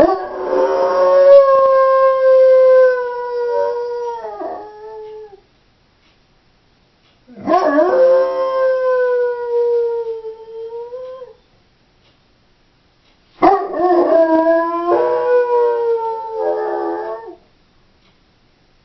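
Doberman howling while left home alone: three long howls, each held at a steady pitch and dropping at the end, with a few seconds of silence between them.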